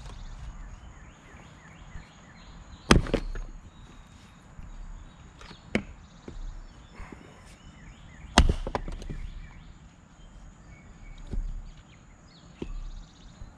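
Axe splitting maple rounds on a chopping block: two sharp loud cracks about three and eight seconds in, each followed by a few lighter knocks, with single lighter knocks of wood between them.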